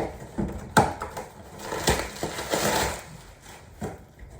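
Unboxing handling noise: packaging rustling, with a few light knocks as items are lifted out of the box and set down.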